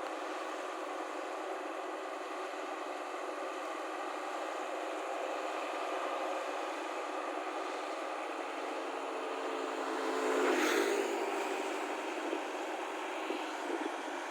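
Rice combine harvester running steadily. About ten seconds in, the sound swells briefly and a falling tone sweeps through it.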